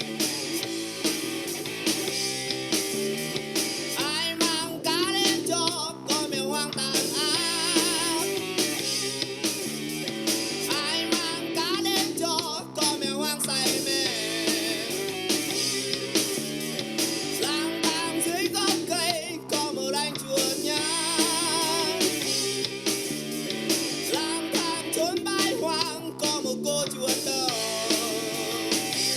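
A pop-rock song with a singer, guitar and drum kit, played back on the Edifier MP85 mini Bluetooth speaker, with almost no deep bass.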